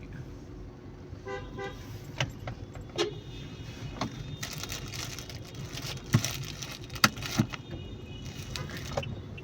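Inside a car cabin: steady engine and road hum, with a short beep about a second in and scattered sharp clicks and knocks, the loudest two about six and seven seconds in.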